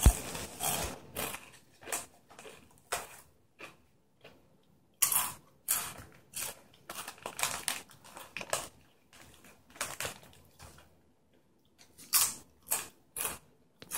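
Someone eating potato chips: irregular, crisp crunches of chewing mixed with the crinkle of a foil chip bag as a hand digs into it, in short clusters with brief pauses between.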